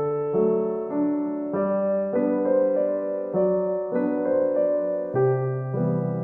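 Background piano music: a gentle keyboard melody with chords, new notes struck about every half second to second.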